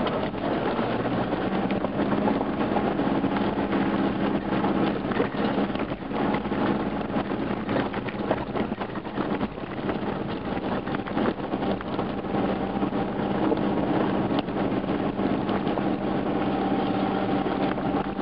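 A 4x4 driving along a dirt and gravel track: the engine runs steadily at a low pitch under the noise of tyres on the track, with frequent small knocks and rattles.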